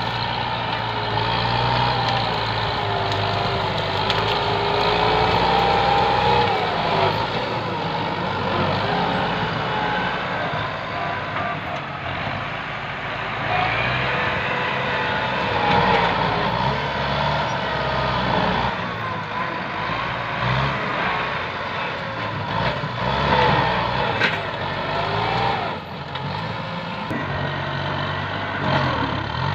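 Kubota tractor's diesel engine working hard as the tractor pushes brush with its front blade, the pitch rising and falling as the revs change under load.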